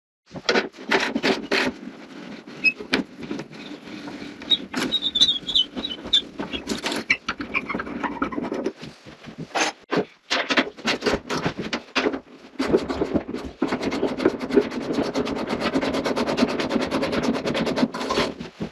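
Hand tools on metal fittings: scraping and irregular knocks with a brief high squeak, then a long, even run of rapid clicking, typical of a socket wrench ratcheting a nut.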